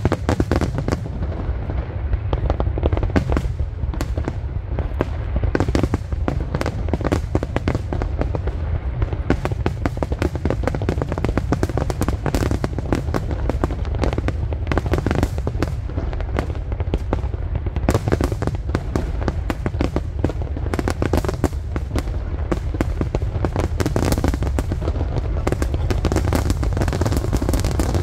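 Aerial fireworks display: a dense barrage of shell bursts and crackle, many bangs a second over a continuous low rumble.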